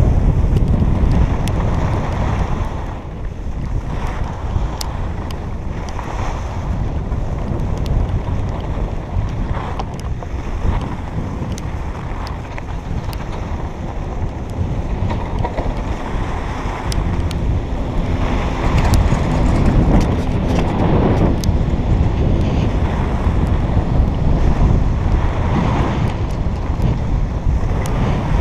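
Wind buffeting an action camera's microphone while it moves down a groomed ski slope, mixed with the hiss and scrape of edges sliding on packed snow. The rushing swells and eases over and over, loudest around a third of the way in and again near the end.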